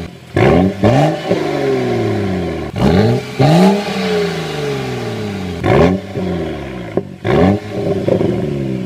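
BMW 135i's N55 turbocharged inline-six revved in a series of short throttle blips, each climbing quickly and falling back to idle, heard at the twin exhaust tips.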